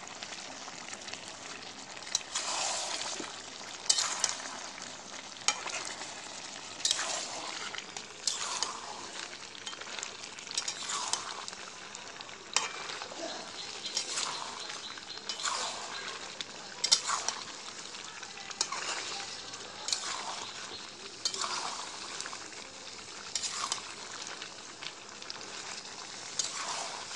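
Mutton and potatoes sizzling in oil in a metal kadai, with a spatula scraping and stirring through the pan about once every second and a half.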